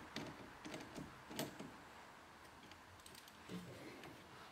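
Faint ratchet clicking as a 10 mm socket tightens the nut on the negative battery cable terminal: a few irregular clicks in the first second and a half, then one soft knock near the end.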